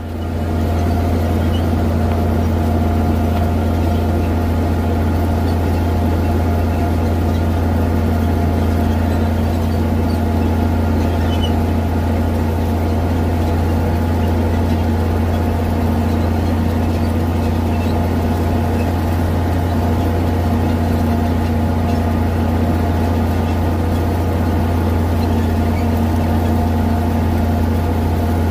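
Farm tractor's engine running steadily as the tractor drives across the field: a constant, unchanging low drone, heard close up from the hood.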